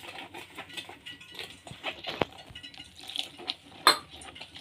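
A spoon stirring wet gram-flour batter in a stainless steel bowl: irregular soft squelches with clicks and scrapes of the spoon against the steel, one sharp knock about four seconds in.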